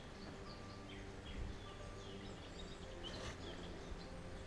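Faint birds chirping in woodland, many short falling chirps over a low, steady background noise.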